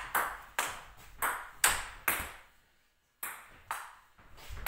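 Table tennis rally: a table tennis ball struck back and forth, sharp clicks of paddle hits and table bounces about two a second, with a short gap just before the middle.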